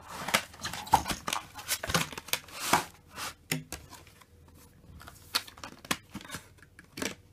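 Clear rigid plastic packaging of a model locomotive being handled: the plastic sleeve and tray scraping, crinkling and clicking against each other. The noise is busiest in the first three seconds, then thins out to a few scattered clicks.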